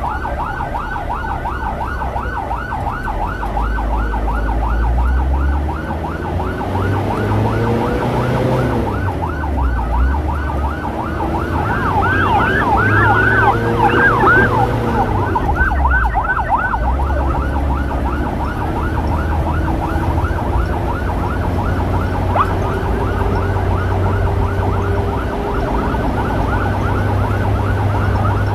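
Emergency siren sounding a fast, repeating yelp. At times a slower siren wails up and down beneath it. Motorcycle engine and road rumble run underneath.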